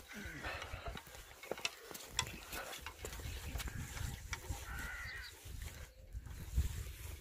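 Wind rumbling on the microphone, with scattered light ticks and a few short animal calls in the distance, one near the start and one about five seconds in.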